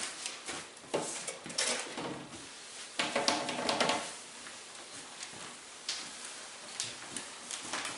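Scattered knocks, clicks and clatters of someone tidying a kitchen: household items being handled and set down, with a longer rubbing or rustling stretch about three seconds in.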